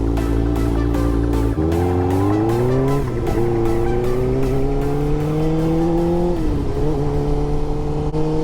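Suzuki GSX-R600's inline-four engine accelerating through the gears. Its pitch rises, drops at an upshift about three seconds in, climbs again and drops at a second shift about six seconds in, then holds steady.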